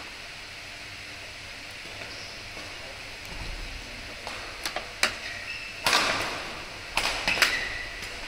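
Badminton doubles rally: a quick run of sharp racket strikes on the shuttlecock, mostly in the second half, ringing in a large hall, with short shoe squeaks on the court floor between them.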